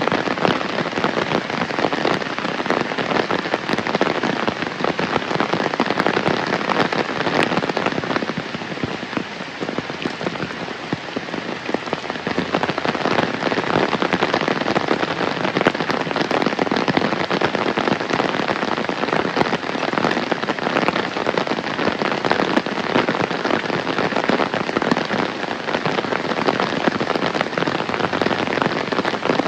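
Heavy rain falling steadily, a dense patter of countless drops, easing slightly for a few seconds about eight seconds in.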